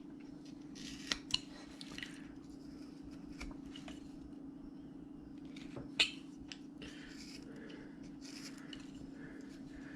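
A carving knife slicing into wood in short, faint scraping strokes, with a few sharp clicks, as stop cuts are made and the wood is cut back against them. A steady low hum runs underneath.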